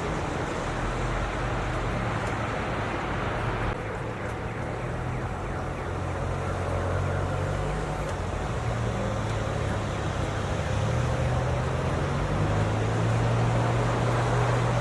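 Snowstorm ambience: steady wind noise with a low rumble underneath, the higher hiss easing slightly about four seconds in.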